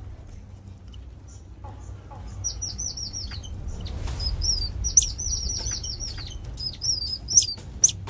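High-pitched chirping calls in quick runs of short, slightly falling notes, beginning about two and a half seconds in, with a few sharp clicks among them, over a low steady rumble.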